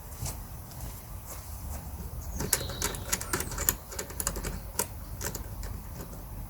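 Irregular light plastic clicks and rattles as the handle screws of a Flymo Easiglide 300 lawnmower are unscrewed by hand, loosening the handle for folding; the clicks come thickest around the middle.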